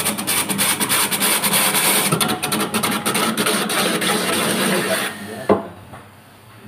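Automatic young-coconut peeling machine shaving the husk off a spinning green coconut: a loud, steady rasping scrape full of fine crackles over a motor hum, stopping about five seconds in. A single sharp knock follows half a second later.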